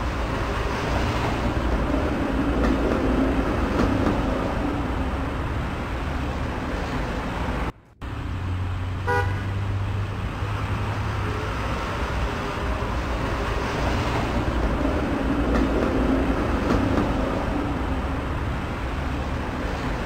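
Car driving along a snow-covered highway: steady engine hum and tyre noise. The sound cuts out briefly about eight seconds in.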